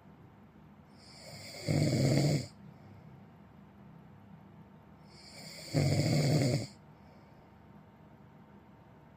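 A person snoring: two snores about four seconds apart, each swelling from a soft breath into a loud, low snore lasting about a second.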